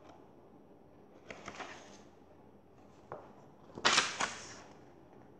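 Paperback picture book being handled: pages rustling and flipping, with a soft rustle early on, a small click about three seconds in, and a louder brief page swish about four seconds in.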